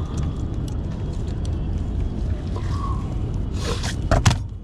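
A freshly caught rohu thrashing and slapping against the landing net and the metal chequer-plate deck as it is lifted out, a quick run of sharp slaps and knocks near the end, over a steady low rumble.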